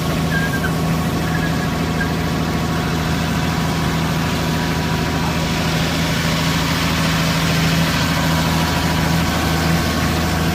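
A vehicle engine idling steadily, a low even hum with no change in speed.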